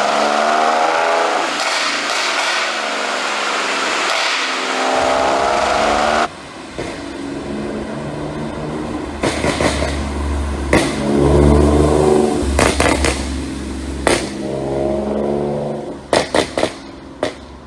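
Audi B8 S4's supercharged 3.0 V6 being blipped and revved repeatedly, its pitch rising and falling, with sharp pops and crackles from the exhaust as the revs drop: the overrun pops of an ECU pop tune. The pops cluster in the second half, several in quick succession near the end.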